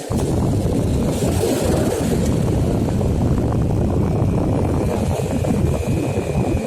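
A steady, loud low rumbling noise without speech, with a faint thin high tone joining it in the second half.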